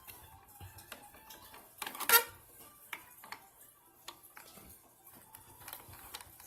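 Small clicks and taps of a screwdriver and screws on a power supply's metal case and heatsink plate, with one louder knock about two seconds in.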